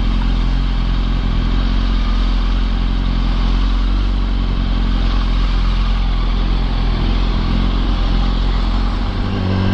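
2005 Yamaha R1 inline-four with an Akrapovic exhaust running at a steady low road speed, its engine note even throughout, with wind and road noise at the helmet-mounted microphone.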